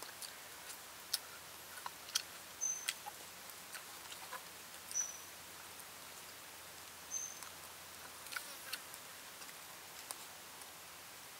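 Sparse small clicks and smacks of eating with bamboo chopsticks and fingers: chopsticks tapping, smoked fish being pulled apart, mouth sounds. A short high chirp sounds three times, a couple of seconds apart.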